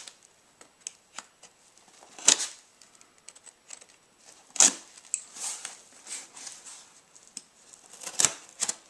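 Knife blade slicing and scraping through packing tape and cardboard: scattered short scrapes and crinkles, with sharper strokes about two, four and a half, and eight seconds in.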